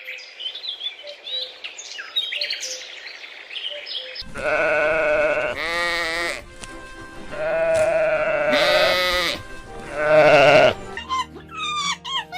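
Livestock bleating: several long, quavering bleats, the last one loudest, after a few seconds of small birds chirping.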